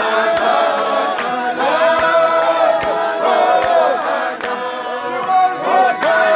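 A group of men's voices singing together a cappella in harmony, with hand claps in unison on an even beat a little under once a second.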